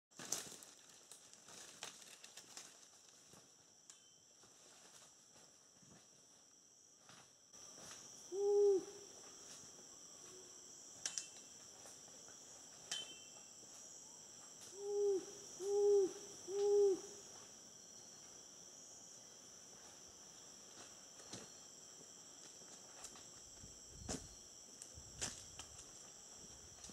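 Tropical rainforest ambience: a steady high drone of insects, with an animal's low hooting call once and then three times in a row about a second apart. A few sharp snaps come near the end.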